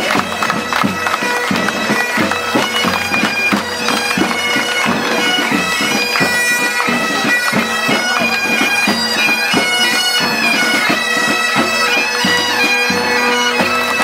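A marching pipe band playing: bagpipes sound a steady drone under a changing melody, with drums beating a regular marching rhythm.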